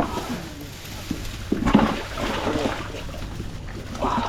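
Splashing in shallow water as a big carp is grabbed from the shallows at the shore, with louder spells of splashing about one and a half seconds in and again near the end, and brief indistinct voices.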